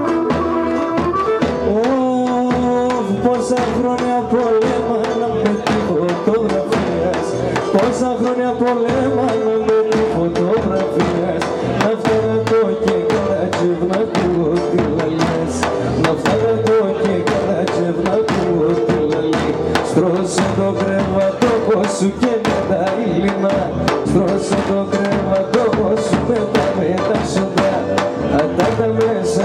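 Live Greek folk dance music: a sustained melody instrument with a wavering pitch played over frequent, steady drum beats.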